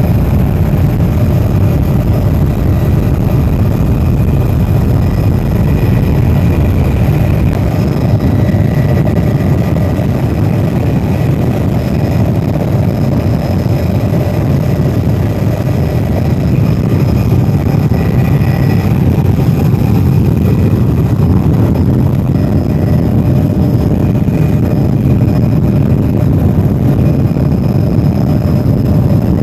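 Helicopter cabin noise in flight: the engine and rotor make a loud, steady, deep rumble, with a faint steady high whine over it.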